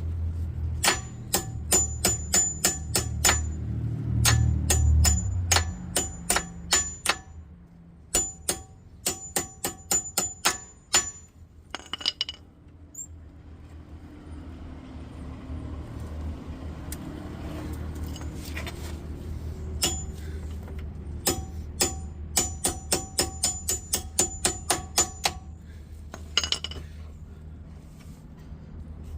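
Hammer tapping a punch against a front brake caliper's pad retaining pin on a Jaguar XJ-S, driving the pin out. The strikes are sharp and metallic with a ringing tone, coming in three runs of about three a second with pauses between.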